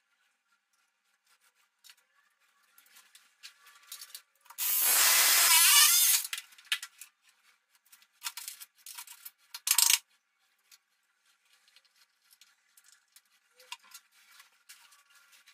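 A power tool run in one burst of about a second and a half, starting and stopping sharply, then two short bursts a few seconds later, with faint rubbing and handling noises around them.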